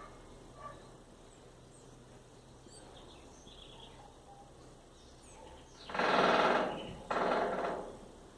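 Woodpecker drumming on a metal house rain gutter: two rapid drum rolls, each lasting under a second, one right after the other about six seconds in. Faint bird chirps come before them.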